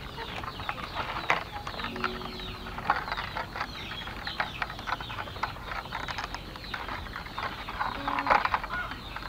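Thin split bamboo strips rustling, scratching and clicking against each other as they are woven by hand into a basket. A chicken clucks briefly a couple of times.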